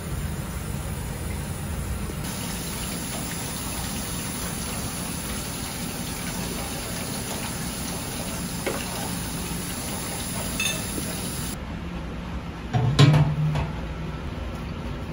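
Water running steadily through the newly installed grease interceptor as it is tested, a continuous rushing. Near the end the metal diamond-plate lid is set down on the unit with a single loud clunk.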